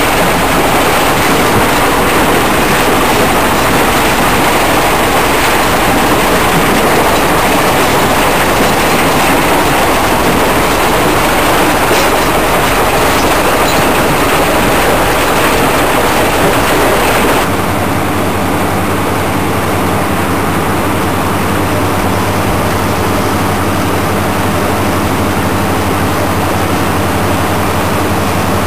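Rock clattering and tumbling over the steel grizzly bars of a mobile crushing and screening plant's feeder, a dense, continuous rattling din. About two-thirds of the way through, it switches to a lower, steadier machine hum from the running plant, with less rattle.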